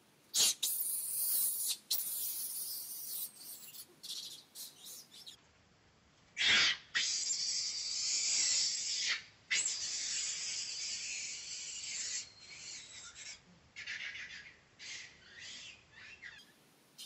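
Long-tailed macaque screaming, shrill and harsh: one long stretch of cries at the start, a louder one in the middle, then short broken screams toward the end.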